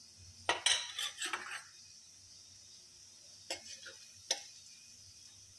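A steel spoon clinks and scrapes against a metal kadhai while gulab jamun balls are turned in hot ghee, over a faint steady sizzle of frying. There is a quick cluster of clinks between about half a second and a second and a half in, then two more single clinks around four seconds in.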